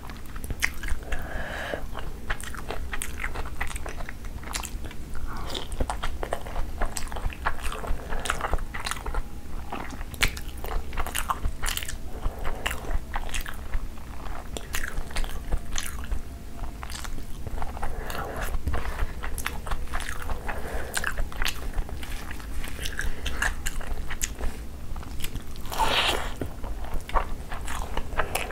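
Close-miked chewing of a mouthful of rice and egg curry, with wet mouth smacks and many small clicks throughout, over a steady low hum; one louder, fuller mouth sound comes near the end.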